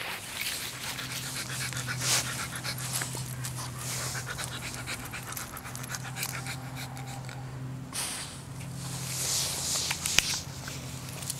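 A husky panting rapidly on a leashed walk, over a steady low hum.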